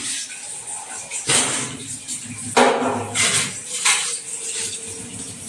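Steel utensils clattering and clinking in a kitchen sink as dishes are washed by hand, with a handful of sharp knocks; after one knock a steel vessel rings on for a couple of seconds.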